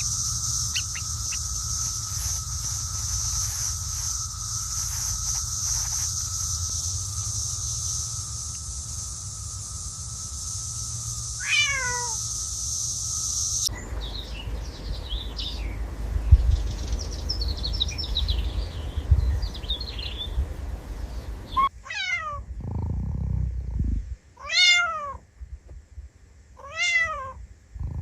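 A cat meowing four times, each call falling in pitch: one about halfway through and three in quick succession near the end. Under the first half runs a steady hiss with a low rumble.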